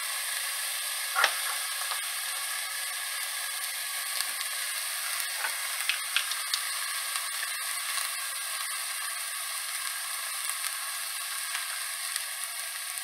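Chopped onion and garlic sizzling steadily in a stainless steel sauté pan, with a few clicks of a spatula and lid against the pan; the sharpest knock comes about a second in.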